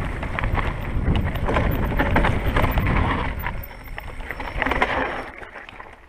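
Mountain bike on a rough dirt trail: a low rumble with rattling clatter and wind on the microphone, dying down near the end.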